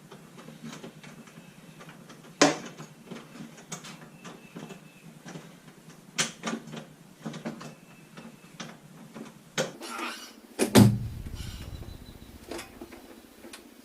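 Scattered clicks and knocks of parts being handled while the hinges and side lid are refitted, with sharp knocks about two and six seconds in and a heavier thump near the end.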